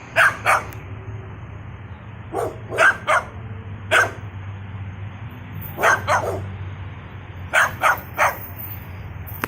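Dog barking in short groups of one to three sharp barks, about eleven in all, over a steady low hum.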